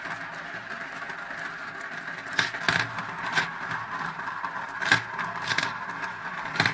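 Marbles rolling round the transparent plastic funnels of a marble run, a steady rolling rumble. Scattered sharp clicks from about two seconds in, the loudest about five seconds in.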